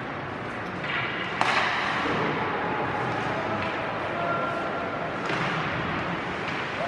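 Ice hockey play on a rink: skates scraping the ice and sticks and puck clacking, with one sharp knock about a second and a half in, over a steady arena hubbub.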